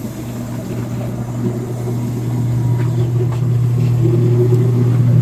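Electric motor starting up and running on a newly replaced motor drive: a steady hum that grows slowly louder, the machine now working normally after the faulty drive was swapped out.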